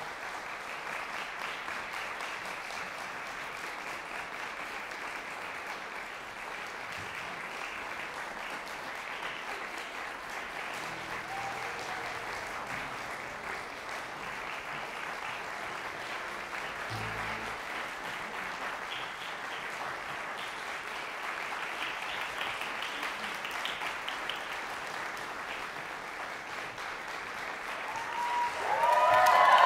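Audience applauding steadily. Near the end a much louder pitched sound comes in over the clapping.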